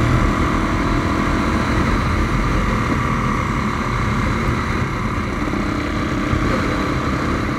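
A Honda Tornado motorcycle, bored out to 350 cc, with its single-cylinder engine running steadily under way.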